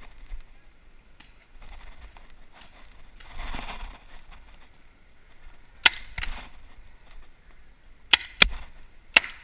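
Paintball pistol firing in short volleys: two sharp pops about six seconds in, two more about two seconds later, and a last one near the end. A brief scuffing noise comes about three seconds in.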